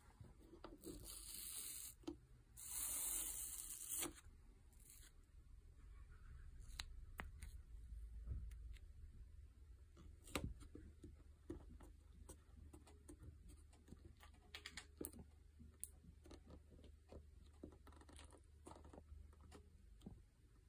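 Adhesive-backed cork tape being peeled off a smooth panel: two long ripping peels about a second apart near the start, then light clicks and crackles as the pad is lifted, bent and pressed back down.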